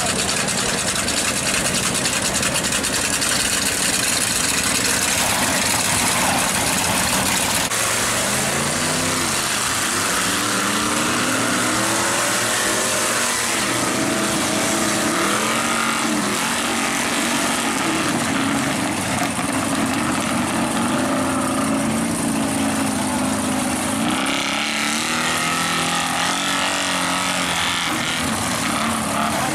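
Lifted 4x4 mud trucks' engines running loud and revving as they race through deep mud. From about a third of the way in, the pitch rises and falls repeatedly as the drivers rev up and back off.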